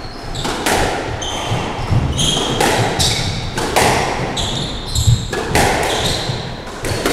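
Squash rally: sharp racquet strikes on the ball and the ball hitting the walls, about one every half second to second, echoing in the enclosed court, with short high squeaks from the players' shoes on the wooden floor between hits.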